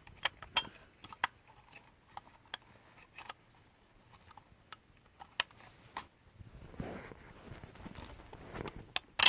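Small clicks and taps of a die-cast toy John Deere 323D skid steer's parts being handled as a side panel's pegs are worked into the body, coming irregularly a few times every second or two.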